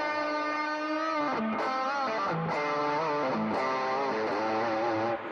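Single-coil electric guitar playing a sustained lead line through a compressor and overdrive pedal. Long held notes give way about a second and a half in to bent notes with vibrato.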